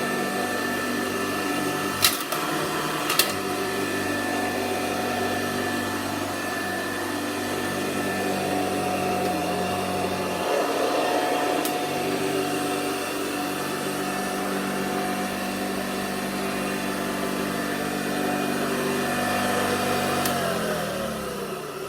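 Hoover Convertible Model 35 upright vacuum cleaner running with a steady motor hum and whine, with two sharp clicks a few seconds in. Near the end the motor is switched off and its pitch falls as it spins down.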